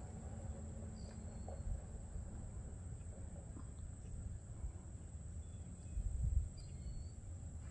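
Outdoor ambience: a steady high insect drone over a low rumble of wind on the microphone, which gusts louder about six seconds in. There are two brief faint high chirps.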